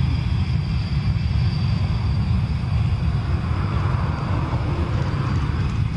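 Panavia Tornado's twin RB199 turbofan engines at taxi power: a steady low rumble under a high whine that falls slightly in pitch, with a rushing swell of jet noise around the middle as the jet rolls past.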